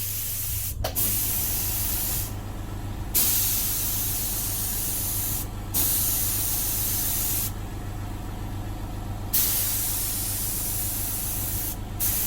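Compressed air hissing out in repeated bursts of a second or several seconds, cut by short pauses. Under it runs the steady hum of an electric air compressor motor.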